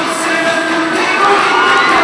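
K-pop dance track performed live through a concert PA, with a large audience cheering loudly over the music.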